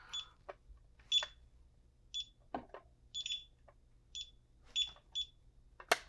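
DSC LCD alarm keypad giving short, high-pitched key-press beeps, about seven spread irregularly across a few seconds, with light plastic clicks as it is handled.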